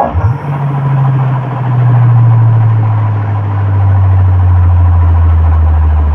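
Large sound-system speakers playing a loud, deep bass tone that slowly slides down in pitch and holds for several seconds, a sub-bass drop.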